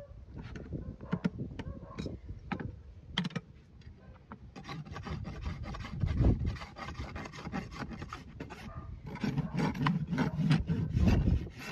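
A farrier's rasp filing a horse's hoof wall in quick back-and-forth strokes. The rasping starts about four seconds in and runs on steadily, after a few light scattered knocks.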